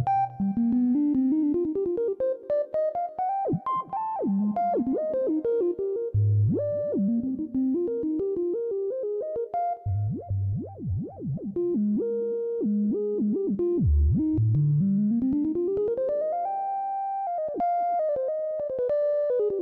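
Background music with quick runs of notes that climb and fall, with low bass notes now and then and one note held for about a second near the end.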